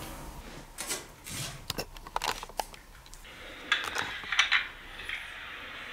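A scattering of light clicks, taps and clinks of small hard objects being handled. About halfway through, a faint steady hiss comes in.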